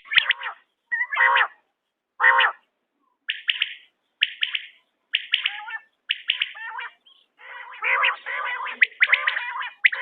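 Quail calling over and over, short calls of several quick notes about once a second. The calls crowd together and overlap for a couple of seconds near the end.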